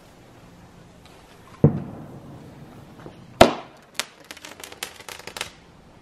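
A tracer shot firework going off: a dull thump about one and a half seconds in, a loud bang near the middle, a second sharp crack, then a quick run of crackling cracks.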